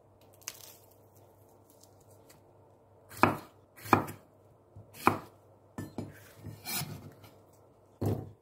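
Kitchen knife chopping a red bell pepper into squares on a wooden cutting board. A few sharp knife strikes on the board start about three seconds in, with quieter handling sounds between them.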